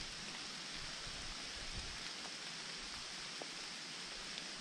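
Light rain falling on forest leaves: a soft, steady hiss with a few faint drip ticks.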